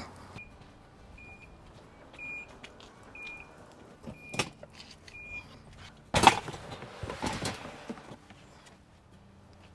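An SUV's warning chime sounding six short beeps, about one a second. About six seconds in comes a loud thud, followed by a rattling clatter of stainless steel pots and pans in a plastic bin as the load goes into the cargo area.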